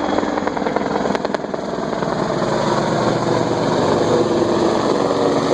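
AH-64 Apache attack helicopter flying low and close, its four-bladed main rotor making a loud, rapid, steady chop over the running engines.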